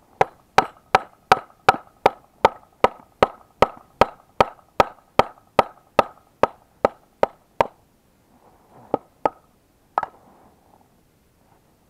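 Hammer blows driving a greased part back into place in a Buran snowmobile's suspension bogie: about twenty quick, even strikes with a ringing tone, then a pause and three more single blows.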